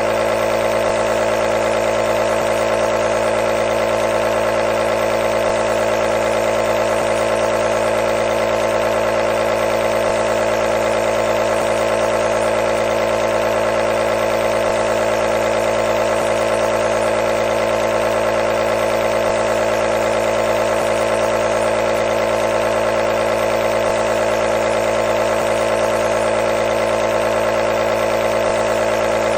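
Nebulizer's air compressor running steadily, a constant buzzing hum with a hiss of air over it.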